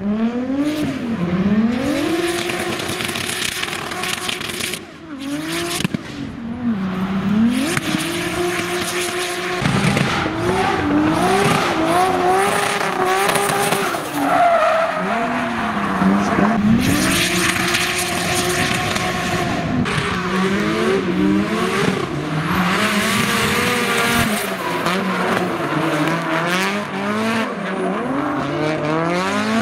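Drift cars' engines revving up and down over and over as the cars slide, with tyres squealing and skidding under wheelspin.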